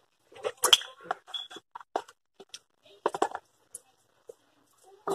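Scattered short clicks, taps and wet smacks: a plastic sauce bottle being opened and handled over a plastic food container, mixed with the mouth noises of eating.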